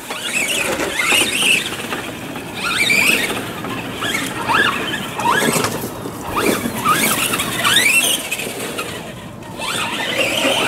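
Radio-controlled trucks' motors whining, the pitch rising sharply several times as the trucks accelerate across the grass.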